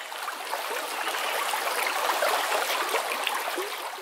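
Stream water rushing and bubbling, swelling in the middle and fading out near the end.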